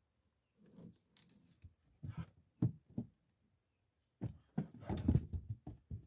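Knocks and thumps as a plastic fish-measuring board and gear are handled in a wooden boat: a few separate knocks, then a quicker cluster from about four seconds in.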